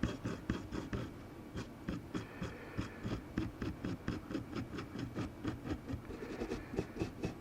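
Rapid back-and-forth scrubbing on a laptop motherboard, rubbing off sticky tape residue, at about three or four strokes a second with a brief let-up about a second in.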